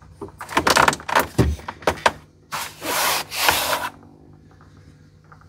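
Molded plastic dash cap scraping and rubbing against the old dash as hands press and shift it into place. A run of short scrapes comes first, then two longer rubs about two and a half to four seconds in.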